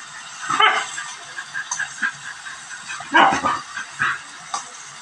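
A dog barking twice, briefly about half a second in and again around three seconds in, over the light scraping of a spatula stirring food in a wok.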